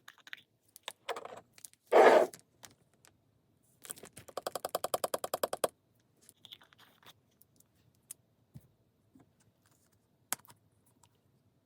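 Small clicks, taps and scrapes of a jar of textured paste and a tool being handled, with a louder brief scrape about two seconds in. Near the middle comes a quick, even run of clicks, about a dozen a second, for under two seconds.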